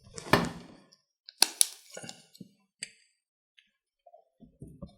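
A metal tool prying at the metal end cap of a 35mm film cassette: sharp metallic clicks and cracks, two loud ones about a third of a second and a second and a half in, then lighter clicks and soft knocks.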